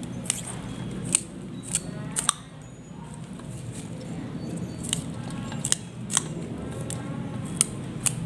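About ten sharp, crisp snaps at irregular intervals as fresh water spinach (Chinese morning glory) stems are handled and broken by hand in a metal bowl, over a steady low hum.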